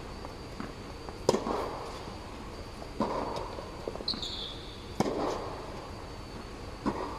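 Tennis rally: a ball struck by rackets, four sharp hits about two seconds apart, each echoing under the air-supported dome. A brief high squeak about four seconds in.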